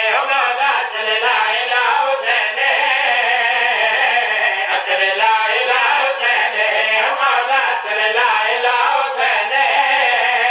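A group of men singing a devotional refrain together in a chant-like style, loud and unbroken.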